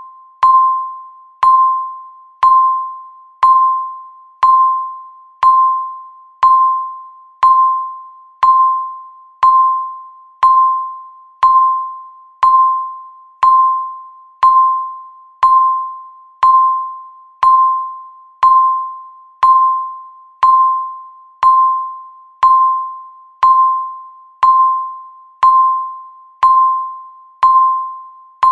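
Countdown timer's electronic chime ticking off the seconds: a single bell-like ding struck once every second, each fading away before the next.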